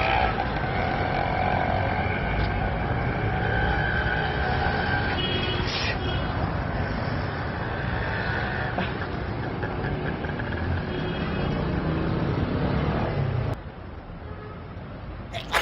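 Road traffic noise: vehicles running and passing, with a steady rumble. It drops off abruptly to a quieter background near the end.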